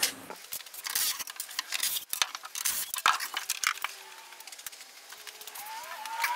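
Scattered clicks, knocks and scraping of small objects being handled in a workshop. Near the end a wavering tone rises and glides in pitch.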